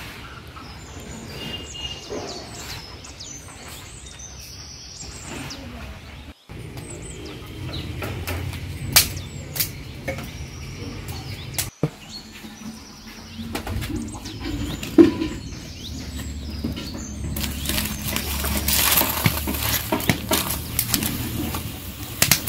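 Birds chirping over outdoor background noise, with a few sharp knocks later. A loud, steady hiss sets in about three-quarters of the way through and lasts to the end.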